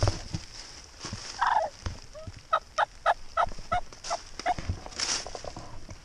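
Wild turkey hen calling as she is flushed off her nest: a falling note, then a quick run of about eight short, sharp notes at about four a second.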